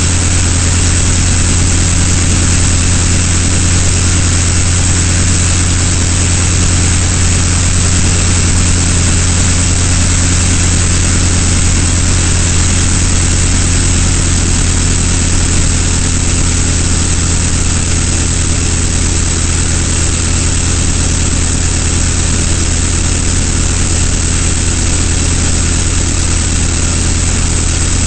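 Avro 504K's rotary engine running steadily in cruising flight, a deep even drone with a rushing noise of wind and airflow over it.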